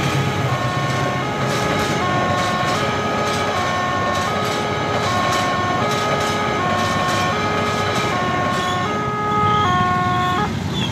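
Railway level-crossing warning alarm sounding a two-tone signal that alternates between a higher and a lower pitch about every half second, over the steady rolling noise of a locomotive-hauled passenger train passing through the crossing. The alarm cuts off suddenly near the end as the barrier begins to lift, signalling that the crossing is clear.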